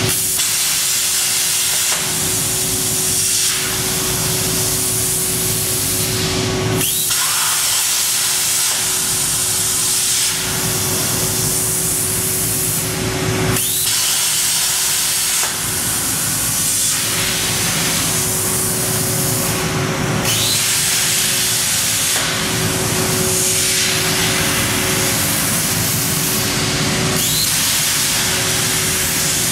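CNC plasma cutter torch cutting steel plate: the plasma arc's loud, steady hiss. It breaks off briefly about every six to seven seconds and starts again as the torch finishes one cut and pierces for the next.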